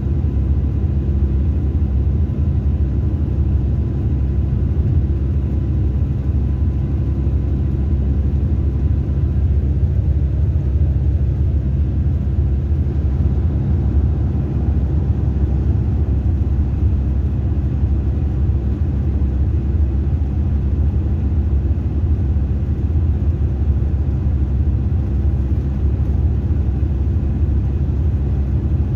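Mercedes-Benz coach heard from inside the passenger cabin: a steady low rumble of engine and road noise.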